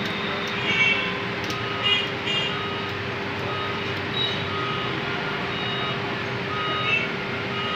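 Steady street-traffic background with a constant low hum and scattered short, high beeps and horn toots. Over it come a few faint small clicks as the number drums of a mechanical motorcycle odometer are turned by hand.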